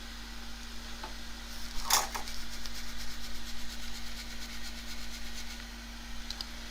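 Steady low hum of bench electrical equipment, with a small click about a second in, a short rustle of handling about two seconds in, and faint regular ticking for a few seconds after.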